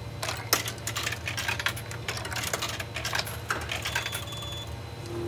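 Coins being fed one after another into a snack vending machine's coin slot, clinking irregularly as they drop through the mechanism. A short high beep sounds about four seconds in.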